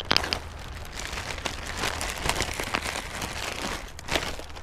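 Plastic wrapping crinkling and rustling as it is handled, with scattered sharp clicks.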